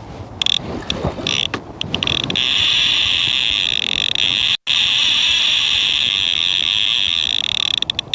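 Fishing reel's drag screaming as a hooked barbel runs and pulls line off the spool. It starts in a few short stutters, then screeches continuously for about five seconds before breaking into stutters again.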